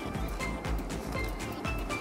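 Background music with a steady, quick beat and short bright melody notes.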